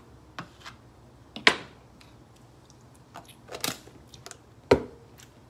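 Spoon and plastic sour cream tub being handled: a few scattered clicks and taps as sour cream is dabbed onto a plate, the sharpest about one and a half seconds in and another near the end.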